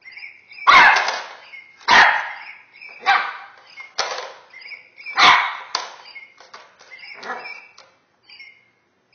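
A small puppy barking repeatedly at a plastic cat toy, about seven short, sharp barks roughly a second apart, with quieter sounds in between.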